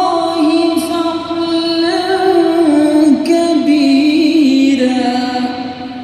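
A man's voice chanting Quran recitation in a long melodic line, holding high notes and bending them with small ornamental turns, then trailing off near the end.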